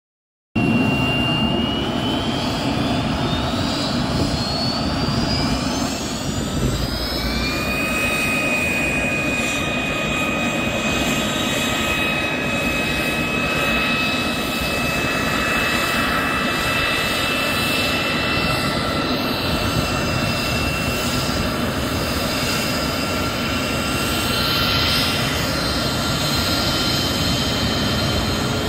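Jet trainer's turbine engine starting up: a whine climbs in pitch for several seconds, then settles into a steady high whine over a constant rush of jet noise at idle.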